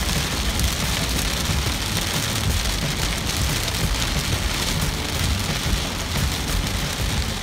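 Heavy rain pelting a car's windshield and roof, heard from inside the moving car, a dense steady patter with a strong low rumble underneath.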